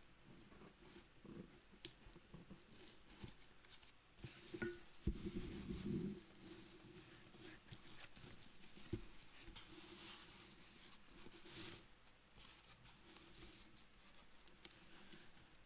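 Scissors snipping and scraping at the packing tape of a cardboard box, with scattered faint clicks and rustles of handling and a dull bump about five seconds in.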